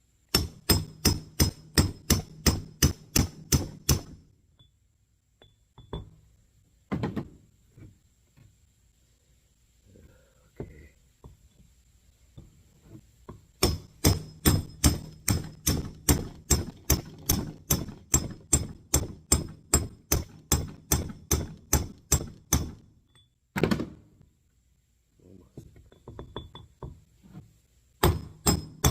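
Hammer tapping on a metal punch in quick, even runs of about three to four strikes a second, with a ringing metallic top, driving a part into a power steering pump housing until it bottoms out. There are three runs with pauses between them and a single strike in the middle.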